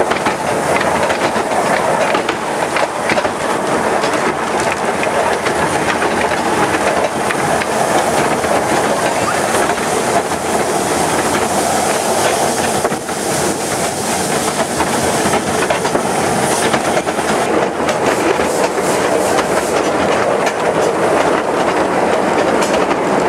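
A 15-inch narrow-gauge passenger train running along the track, heard from aboard a carriage: a steady rumble and rattle of wheels on rail with frequent clicks.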